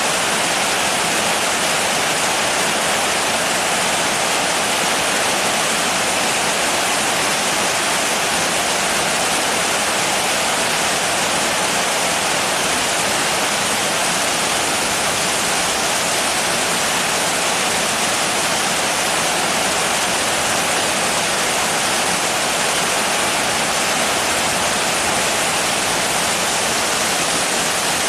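Steady heavy rain falling: a dense, even hiss of water with no single drops standing out.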